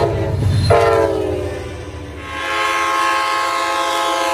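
Train horns blowing in a run of blasts: a short one ending just after the start, a second about a second in that sags slightly in pitch, and a long steady blast in a different chord from about two seconds in. A low locomotive rumble sits under the first second.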